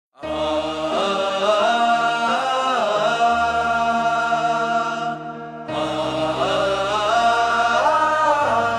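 Intro of a patriotic Urdu song: voices chanting a melody over held low drone notes. It starts suddenly about a quarter second in, with a short dip a little past the middle.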